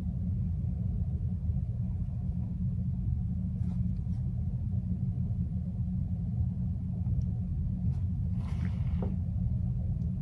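A steady low rumble, with a short rustle about eight and a half seconds in.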